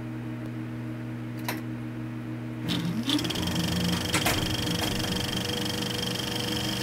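Film projector running: a steady motor hum, then about three seconds in a fast mechanical clatter with a high whine sets in, with a few sharp clicks.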